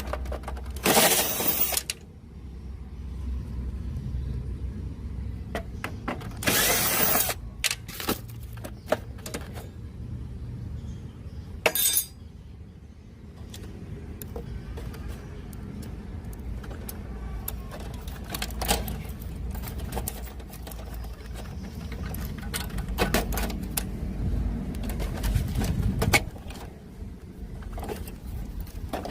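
Handling noise: scattered clicks, knocks and scrapes, with three louder rushing scrapes near the start, about seven seconds in and about twelve seconds in, over a steady low rumble.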